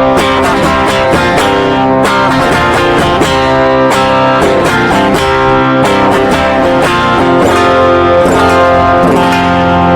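Electric guitar played through a JOYO Tai Chi overdrive pedal set low, strummed chords and picked notes with a clean tone just starting to break up. Recorded with the pedal going straight into an audio interface, with no amplifier in the chain.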